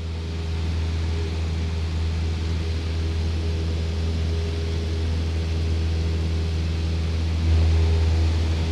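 Steady drone of a small propeller plane in flight: a deep engine hum over a broad rushing noise, swelling slightly about seven and a half seconds in.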